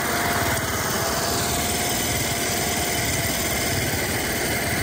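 Small engine running steadily at a constant speed, with a faint steady whine above the engine noise.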